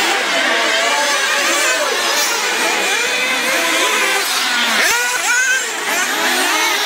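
Several nitro RC buggy engines running at high revs, their high-pitched buzz rising and falling as the buggies accelerate and brake around the track. A quick sweep in pitch comes about five seconds in.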